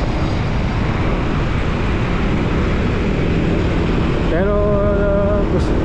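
Wind rushing over the microphone with the road and engine noise of a motor scooter riding through city traffic at about 30–45 km/h. Near the end a held, steady pitched tone sounds for about a second over the rush.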